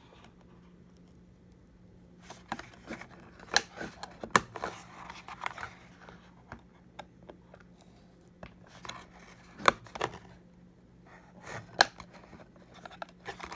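Snips and sharp clicks of zip ties being cut and plastic packaging worked loose by hand, scattered irregularly, with four louder snaps among them.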